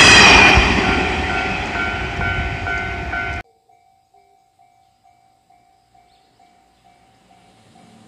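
A Japanese level-crossing bell rings in quick even strikes, about two and a half a second, over the loud rolling noise of a green 103 series electric train passing on the rails. The train noise fades. About three and a half seconds in, everything cuts off suddenly, and only a faint repeating bell tone at the same rhythm remains.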